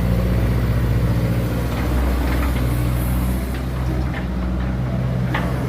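A steady motor hum with a hiss over it and a few light clicks.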